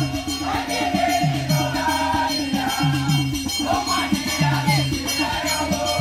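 Recorded song with a steady, repeating bass line and singing over it.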